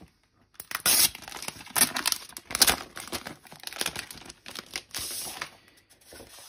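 Thin clear plastic sleeve crinkling and rustling as poster sheets are pulled out of it. After a brief hush it starts about half a second in, with several loud crackles over the next few seconds that grow sparser near the end.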